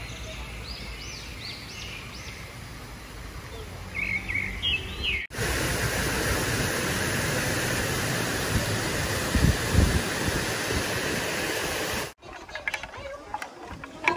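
Small birds chirping in short, quick calls for about five seconds. The sound then cuts abruptly to a loud, steady rushing noise that lasts about seven seconds. That stops just as suddenly and gives way to a quieter stretch with a few scattered clicks.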